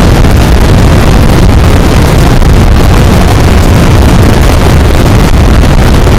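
Loud, distorted wind buffeting on the microphone of a motorcycle at riding speed, with the Yamaha YZF600R's inline-four engine running underneath.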